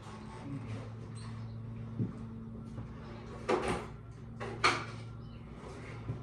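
A sharp knock about two seconds in, then two louder clattering, rustling bumps in the manner of a cupboard or door being handled, over a steady low hum.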